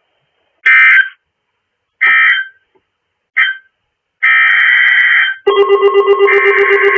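Three short screeching bursts of EAS/SAME digital data tones, the End of Message code that closes the flood warning broadcast. A longer burst of similar tones follows. Then, about five and a half seconds in, a steady pulsing electronic tune with several held tones begins.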